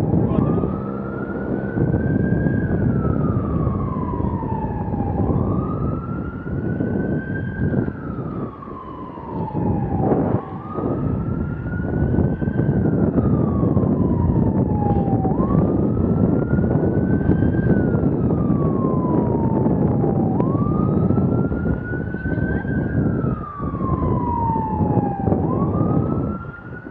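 Emergency vehicle siren in a slow wail, rising quickly and then falling away over a few seconds, repeating about every five seconds. Heavy wind rush on the microphone of a moving bicycle runs underneath.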